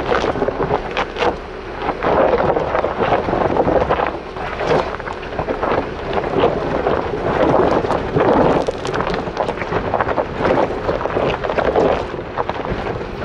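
Jeep Wrangler's off-road tyres rolling slowly over a rocky dirt trail, crunching on gravel and popping over loose stones in a dense run of sharp clicks. A low steady hum runs beneath, with wind buffeting the microphone.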